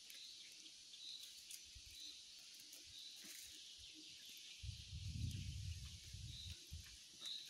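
Faint woodland ambience: a steady high insect hiss with a short, high chirp repeating about once a second. A low rumble comes in for over a second about two-thirds of the way through.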